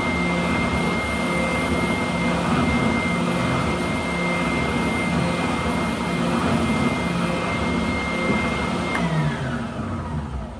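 WEN 6524 oscillating belt and spindle sander running steadily with a high motor whine. About nine seconds in it is switched off and winds down, its pitch falling away.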